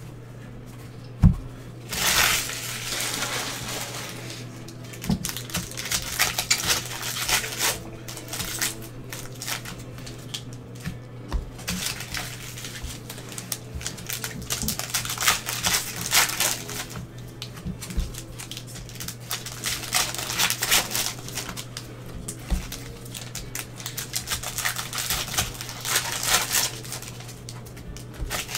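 Foil trading-card packs crinkling and tearing open, with cards rustling and shuffling as they are handled, in irregular bursts. There is one sharp knock on the table about a second in, and a steady low electrical hum underneath.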